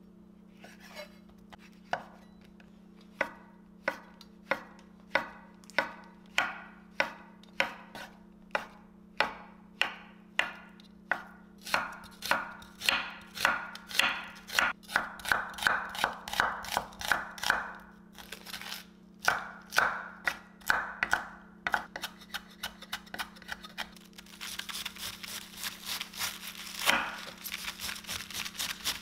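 Chef's knife chopping on a wooden cutting board: slicing mushrooms and onion in evenly spaced strokes that quicken after about twelve seconds, then, near the end, a quick dense run of cuts shredding cabbage.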